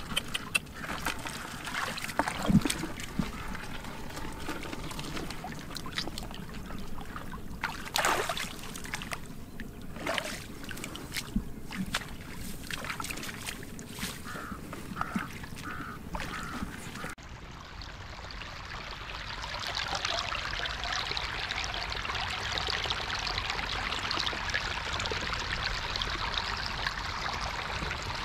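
Shallow floodwater trickling and splashing, with scattered knocks and clicks as hands search through it. About two-thirds of the way in it changes abruptly to a steady rush of running water.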